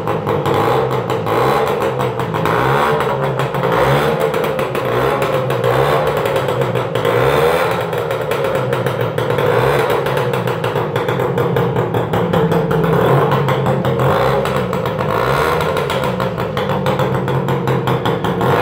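Motovespa ALX Vespino moped's small two-stroke single running loud and raw through an exhaust with its baffles removed, revved up and down over and over.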